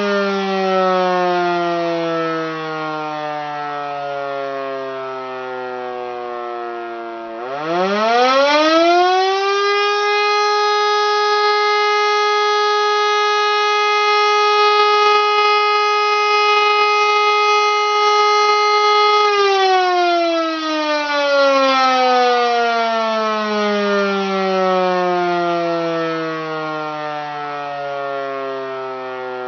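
E57 electromechanical motor siren sounding the fire-alarm signal. It starts out winding down with a falling pitch. About seven seconds in it spins back up in a quick rising wail to a steady tone, holds it for roughly ten seconds, then winds down again with a slowly falling pitch.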